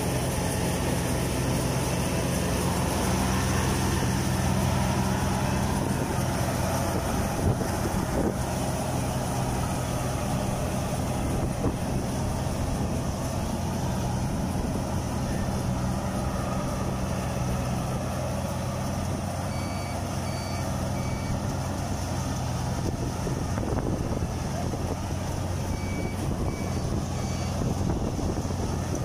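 Kubota rice combine harvester's diesel engine running steadily at working speed. A short electronic beep sounds three times about two-thirds of the way through, and three times again near the end.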